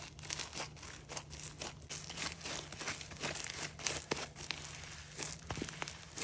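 Sticky snow fairy slime being squished and stretched by hand as fresh activator is worked in, giving a steady run of small, irregular crackles and sticky pops.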